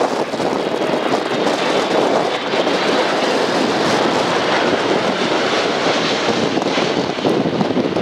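Boeing 767-300ER's two GE CF6-80C2B2 turbofan engines at approach power passing low overhead on landing: a loud, steady jet rumble with the fans' high whine singing over it.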